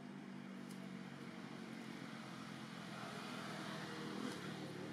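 Low engine hum of a passing motor vehicle, swelling about three to four seconds in and then starting to fade.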